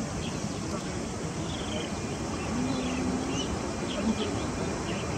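Outdoor ambience: a steady background hiss with scattered short, high chirps throughout, and a brief low hum about halfway through.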